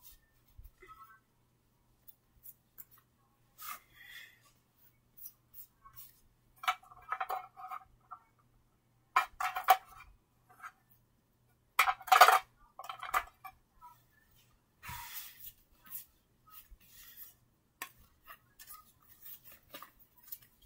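Scattered clicks, taps and clinks of small objects being picked up and put down by hand, with a few louder clusters about a third, half and three-fifths of the way through.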